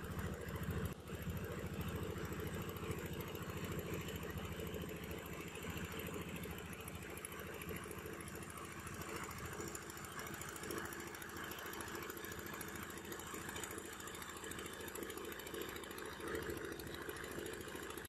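Fishing boat's engine running steadily at an even pace, heard from on board, with a fast regular low beat.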